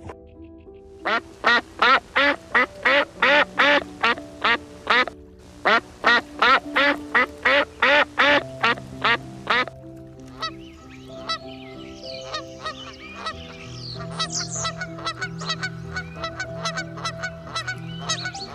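Duck quacking in two long runs of rapid, evenly spaced quacks, about three or four a second, over background music. From about ten seconds in, quieter and busier mixed bird calls take over.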